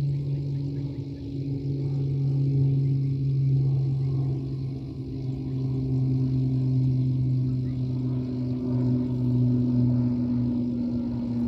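A steady low motor hum that holds the same pitch throughout, with no revving.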